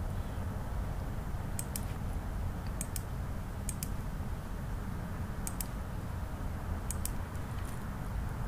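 Computer mouse clicking about five times, each click a quick press-and-release pair, while line segments are picked off one by one with the Trim command. A steady low hum runs underneath.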